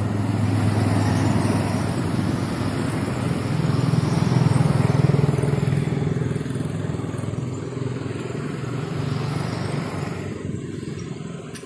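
A motor vehicle's engine running steadily, with a low hum that grows louder to a peak about five seconds in and then fades away near the end.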